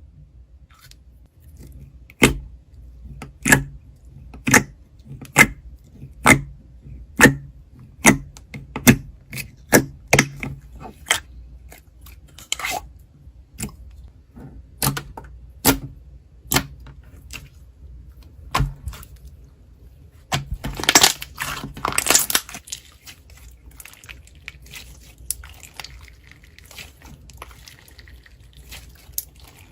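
Slime being pressed and squished by hand, giving sharp wet pops about once a second, then more scattered pops. About two-thirds of the way through there is a couple of seconds of louder crinkly rustling, followed by faint crackling.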